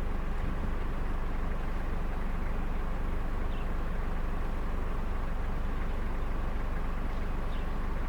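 Steady engine and road noise of a car driving.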